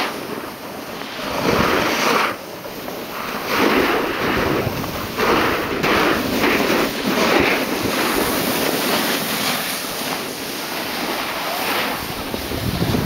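Wind rushing over the microphone of a camera carried down a ski slope, with a surging hiss of edges scraping across packed snow on the turns.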